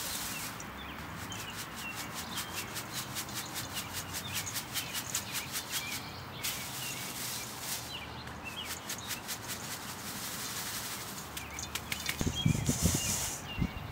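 Arugula seed and chaff rattling in a plastic colander as it is shaken over a metal bowl to sift the seed: a fast, even rustle of about ten strokes a second, in two spells. Small birds chirp faintly, and a few low thumps come near the end as the colander is handled.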